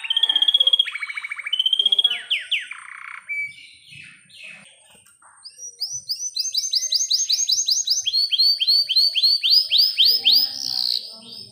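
Domestic canary singing: quick trills in the first few seconds, a short lull, then from about six seconds in a long roll of fast repeated sweeping notes, about five a second, that drops lower in pitch about eight seconds in.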